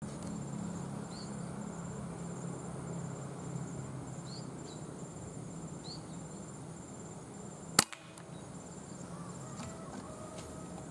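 A single air rifle shot about three-quarters of the way through: one sharp crack that is the loudest thing heard. Behind it, a faint insect trills in even pulses and a small bird gives a few short chirps.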